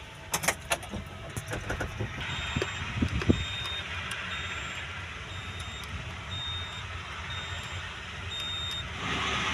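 An electronic warning beeper sounding a short, high beep a little more than once a second, about ten times, over a steady mechanical hum. A few knocks and clicks come in the first seconds.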